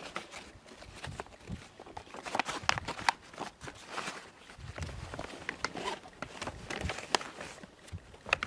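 Soft plastic collapsible water canister and hose fitting being handled: irregular crinkling, rustling and small clicks.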